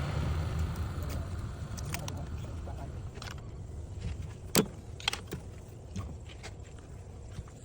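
Car being cranked on the starter without the engine catching: a steady low mechanical rumble that fades off over the first couple of seconds, with a few sharp clicks, the loudest about four and a half seconds in.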